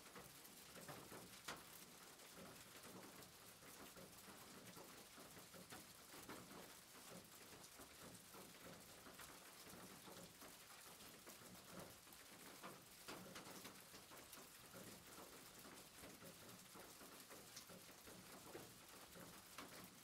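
Near silence: faint room noise with a few soft, scattered clicks.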